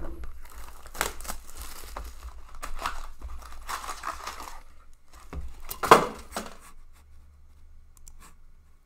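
Plastic shrink-wrap and a cardboard box of 2019-20 Upper Deck Trilogy hockey cards being opened by hand: crinkling and tearing of the wrap, rustling of the box and the card packs as they are pulled out. The loudest moment is a sharp crackle about six seconds in, and the rustling stops about a second later.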